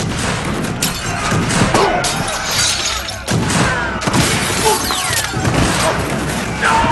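Chaotic crashing and smashing, many overlapping impacts and breaking sounds with a few brief shouts, over dramatic music.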